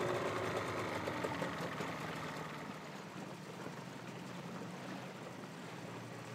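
Outboard motor of a small inflatable boat running steadily, louder for the first couple of seconds and then settling a little quieter.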